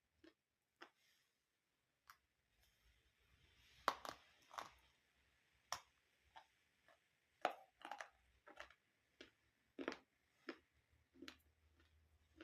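Dry multani mitti (Fuller's earth clay) crunching and cracking: a dozen or so irregular sharp snaps with soft crumbling between them.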